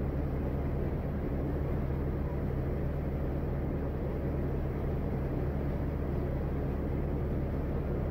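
Passenger ferry boat's engine running steadily under way: a constant low hum with an even rushing noise over it.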